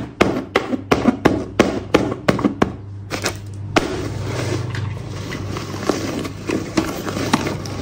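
A pen jabbing into a paper poster over and over, about three sharp taps a second, then paper tearing and rustling from about four seconds in as a hand pushes through the hole.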